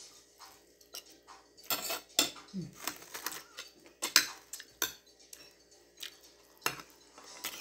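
Metal spoon and fork clinking and scraping against a plate in short, irregular clicks while someone eats rice and fish.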